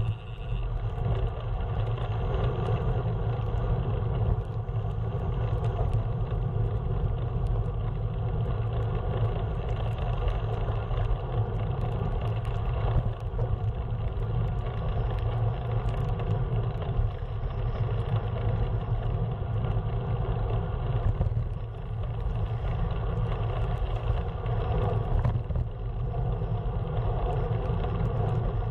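Steady low vehicle rumble with an even hum, unchanged throughout.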